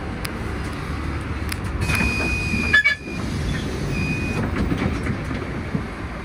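Bus running, with a steady engine and road rumble, and a high electronic beep about two seconds in followed by a shorter one about four seconds in.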